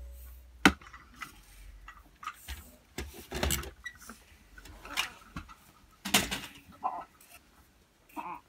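Felt-tip marker strokes on a sheet of paper: a few short scratchy rustles, with a sharp click near the start.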